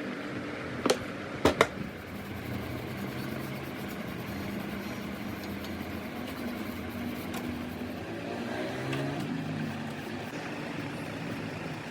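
A motor running steadily with a hum that shifts in pitch, after three sharp knocks in the first two seconds.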